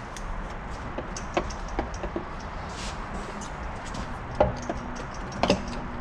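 Light clicks and knocks of metal parts as a 62TE transmission's valve body is worked loose and lifted off the case, with two sharper knocks near the end, over steady background noise.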